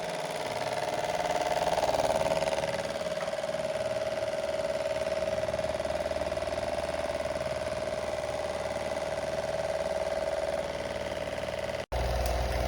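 Max Star 18-inch pedestal fan running: a steady electric motor hum with a whoosh of moving air. Near the end the sound cuts out for an instant and comes back with a deeper low hum.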